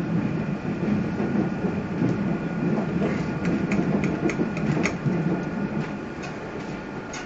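Passenger train heard from inside the carriage while moving: a steady low rumble of wheels on rails with a faint steady whine. A quick run of sharp clicks comes about three to five seconds in, and another just before the end, as the wheels cross track joints.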